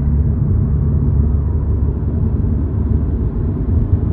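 A car on the move: a steady, loud low rumble of engine and road noise with no change in pitch.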